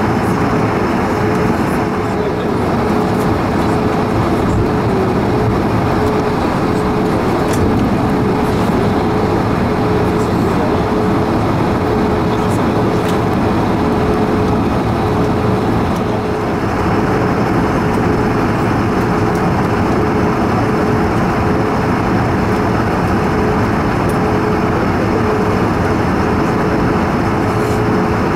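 Cabin noise of a Bombardier CS100 (Airbus A220-100) taxiing, its Pratt & Whitney PW1500G geared turbofans at taxi power: a steady rush with a steady mid-pitched hum.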